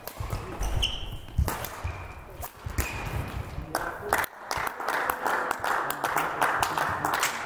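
Badminton rally on a hall court: racket strikes on the shuttlecock, footsteps and short shoe squeaks, then from about four seconds in, a run of applause and clapping as the point is won.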